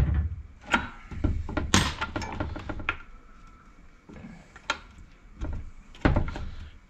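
A string of irregular knocks and clunks from tools and parts being handled on a gearbox.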